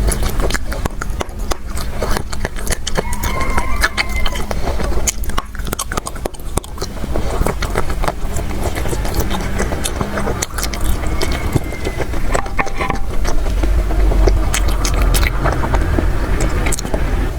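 Close handling of chocolate candies: a dense run of scrapes, taps and clicks over a low rumble.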